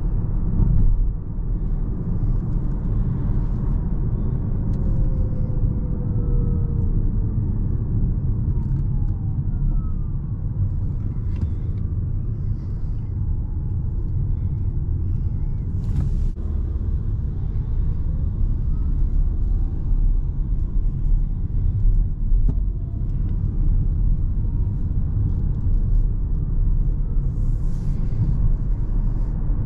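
Road and tyre rumble heard inside the cabin of a Peugeot e-2008 electric car driving at city speeds, with the faint whine of its electric motor sliding up and down in pitch as it speeds up and slows. A single sharp click comes about 16 seconds in.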